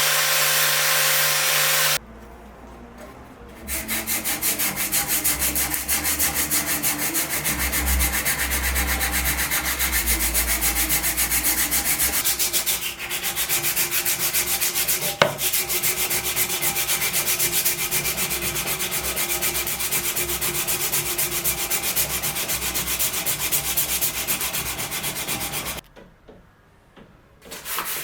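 Wood being hand-sanded in fast, even back-and-forth strokes. Before that, a steady machine noise cuts off about two seconds in. The strokes stop briefly near the end, and there is one sharp click midway.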